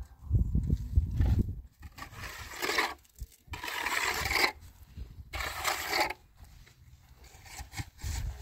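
Trowel scraping cement mortar against the foot of a concrete-block wall in three strokes of about a second each, after low thumps in the first second or so.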